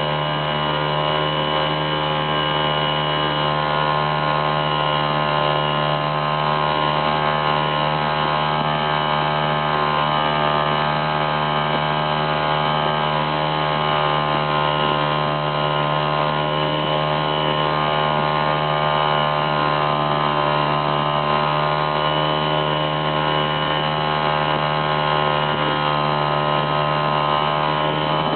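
A steady motor drone running at a constant, unchanging pitch, with no breaks.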